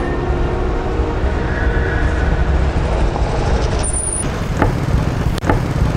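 Steady street traffic noise: a low rumble of road vehicles, with a couple of short clicks near the end.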